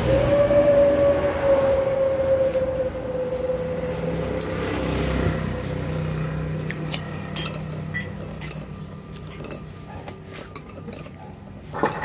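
Metal spoon and fork clinking and scraping against ceramic bowls as bakso meatballs are cut and scooped, a string of light clinks in the second half with one louder knock near the end. Before that, a steady droning hum fades out by about halfway.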